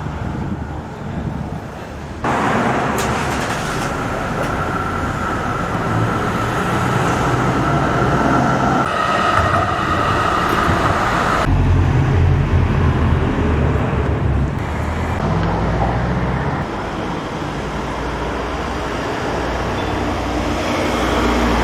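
Street traffic passing close by. One passing vehicle gives a steady high whine for several seconds, then there is a heavy deep rumble.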